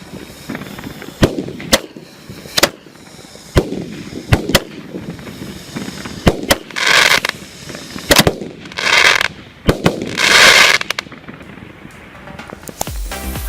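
A 16-shot consumer firework box (cake) firing: a string of sharp bangs from the shots and bursts, often in quick pairs. In the second half come three longer, loud hissing bursts, about a second and a half apart.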